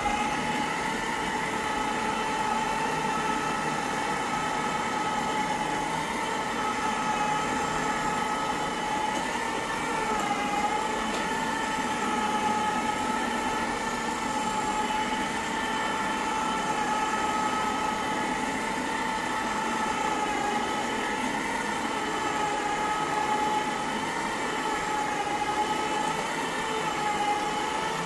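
Electric carpet-cleaning machine running as it is pushed over carpet: a steady motor whine that dips slightly in pitch now and then.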